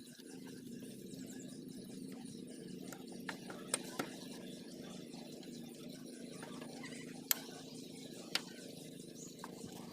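A handful of sharp, separate clicks, likely tools or metal parts knocking, over a steady low hum.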